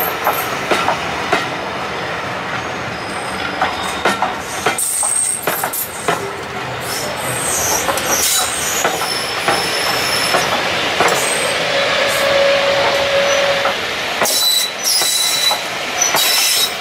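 BR Mark 1 passenger coaches rolling past close by: a steady rumble of steel wheels on rail, with clacks over the rail joints and short high-pitched wheel squeals.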